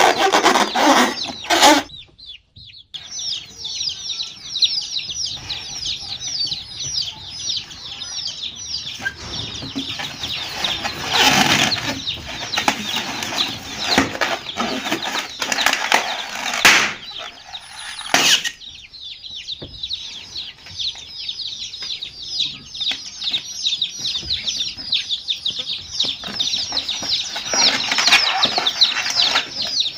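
A brood of baby chicks peeping continuously, a dense chorus of short, high, falling chirps. It breaks off briefly about two seconds in, and a few louder, fuller noisy bursts stand out near the start and again around the middle.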